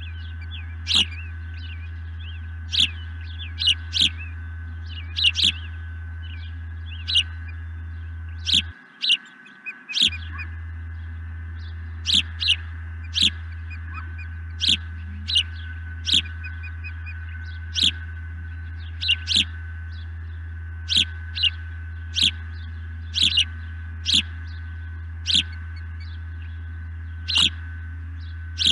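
Osprey calling: short, sharp, high-pitched cheeps, singly and in pairs, repeated every second or two over a steady low hum. The uploader takes the calling for a male osprey's sky-dance display.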